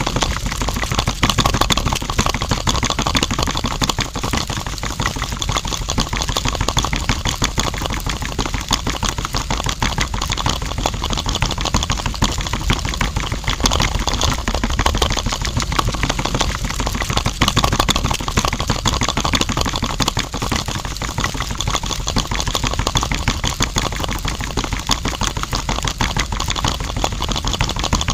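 Small electric motor spinning a miniature concrete-mixer drum full of wet concrete, running steadily with a fast, even rattle.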